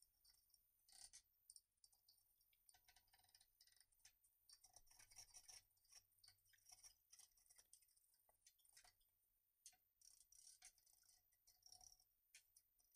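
Faint, scattered scraping and light clicks of hand tools shaving wood: a hand plane and chisel trimming a lap joint in a glued-up yellow pine bench leg.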